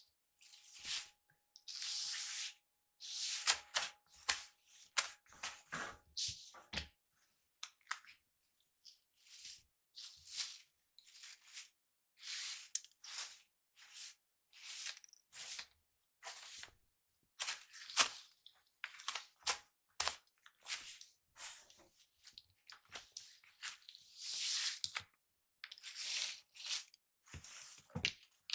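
Straw broom sweeping the floor in repeated short strokes, a dry swish with each stroke, at an uneven pace with a short pause about seven seconds in.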